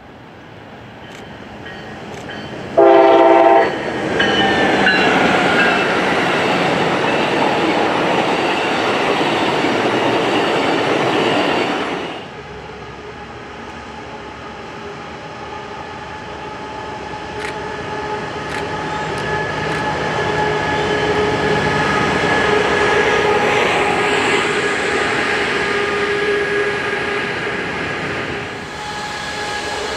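Amtrak Pacific Surfliner train led by a Siemens SC-44 Charger diesel-electric locomotive: one short horn blast about three seconds in, then loud rumbling as the locomotive and coaches pass. After a cut, a second Surfliner train passes, its engine tones and rail noise growing louder.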